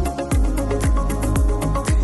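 Electronic background music with a steady beat of about two kick-drum strokes a second.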